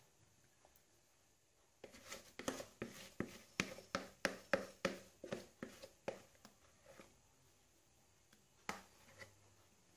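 A quick run of light knocks and scrapes on a plastic mixing bowl, about three a second, while thick genoise sponge batter is scraped out of it into a paper-lined baking tin. One more knock comes near the end.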